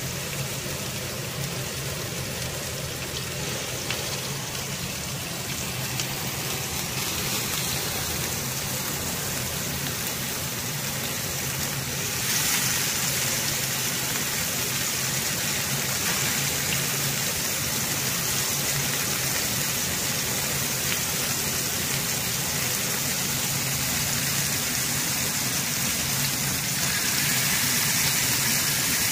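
Masala-coated salmon steaks sizzling in hot oil on an iron dosa tawa, a steady hiss that gets louder about twelve seconds in as more pieces go into the pan.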